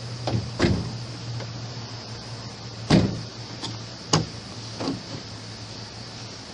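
Clicks and knocks of a newly fitted 2007 Sprinter sliding-door handle mechanism being worked by hand, a tight fit that still springs back on its own. About six sharp knocks, the loudest about three seconds in, over a steady low hum.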